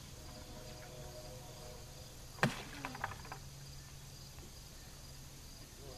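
Crickets or other insects chirring steadily in a high, even drone, with one brief sharp sound about two and a half seconds in.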